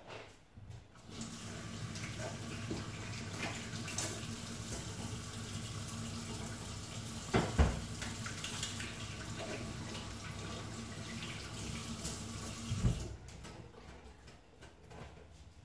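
Kitchen tap running into a stainless-steel sink during washing up, starting about a second in and shutting off near the end, with a sharp knock of something set down in the sink about halfway through.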